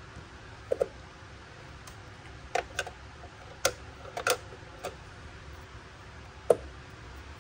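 Light, sharp clicks and taps of small plastic miniature toy kitchen pieces being picked up and set down on a plastic toy table, about nine in an irregular string, the loudest one about six and a half seconds in.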